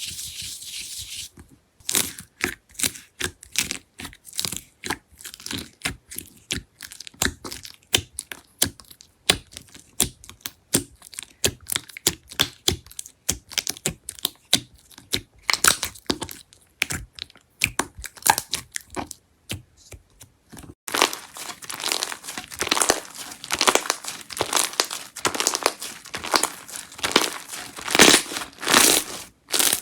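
Slime being pressed and stretched by hand, giving a rapid, irregular run of crackling pops and clicks that grows denser and louder about two-thirds of the way through.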